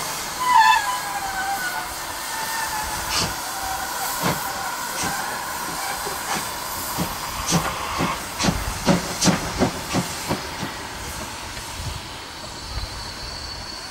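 Class 52.80 steam locomotive starting away: a steam whistle dies away in the first couple of seconds, then the cylinder drain cocks hiss steadily while sharp exhaust chuffs come quicker as it gathers speed, thinning out near the end as it pulls away.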